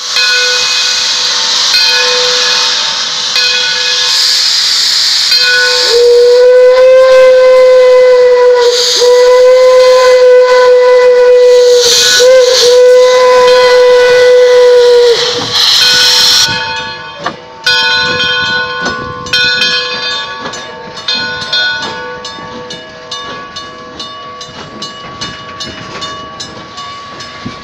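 1897 Baldwin steam locomotive hissing steam, then its steam whistle blowing loudly for about nine seconds with two short breaks. After that the train rolls by with a rapid, steady clicking.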